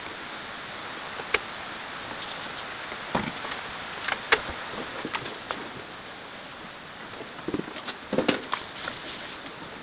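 Scattered clicks and knocks of parts and tools being handled while an old home-built rotary welding table is taken apart, over a steady hiss; the loudest knocks come about four seconds in and near the end.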